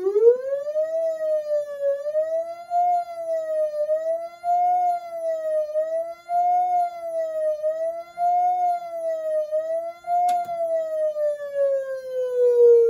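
Whelen WS-3000 electronic siren controller sounding its attack (fast wail) tone through a single siren driver set in a towel-covered bucket. The pitch climbs, then sweeps up and down about every two seconds. After about ten seconds there is a click, and the tone glides slowly down.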